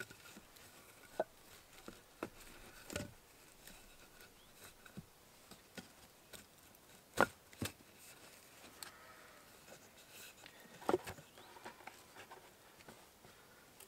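Homemade wooden-pole camp chair with a canvas sling being handled: scattered short knocks of wood and rustles of canvas, the sharpest a pair about seven seconds in and another near eleven seconds.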